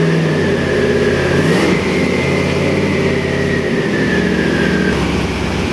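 Nelson Racing Engines twin-turbo 427 V8 on an engine dyno, just started with no throttle and running at a fast idle that steps down in speed as it settles toward idle, about four seconds in. A high whine rides above the engine note, easing down in pitch near the end.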